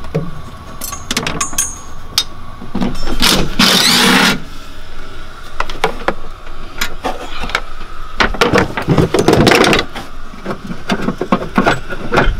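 Knocks, clicks and scraping of hands and hand tools working on metal and plastic parts deep inside a Polaris RZR's chassis, with two longer rasping stretches a few seconds apart.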